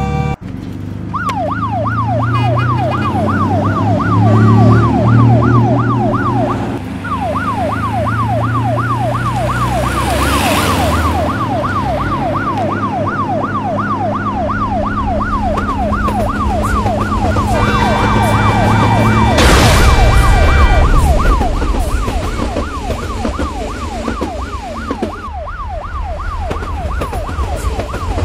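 Electronic police-car siren yelping in fast, even up-and-down sweeps over a low rumble, with a brief break in the siren about six seconds in. Past the middle a horn-like tone sounds over it for a few seconds, together with a loud rushing swell.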